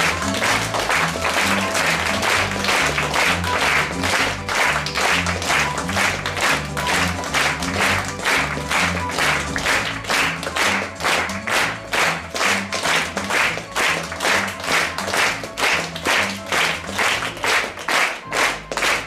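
An audience and cast clapping together in a steady rhythm over music with a bass line; the music fades out after about twelve seconds while the rhythmic clapping goes on.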